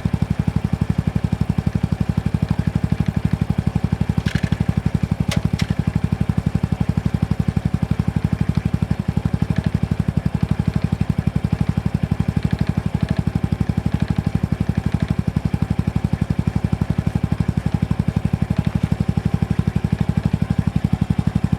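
Honda Super Cub C125's air-cooled single-cylinder engine idling steadily, with a clattering rattle that comes and goes: a few sharp clicks about four and five and a half seconds in, and fainter ticks later. The owner takes the rattle for an abnormal engine noise.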